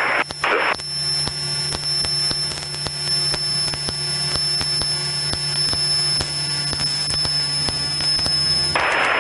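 Small single-engine propeller plane's engine running steadily, heard through the headset intercom as a constant hum and hiss with a steady high whine and scattered faint clicks. A short burst of radio static comes near the end.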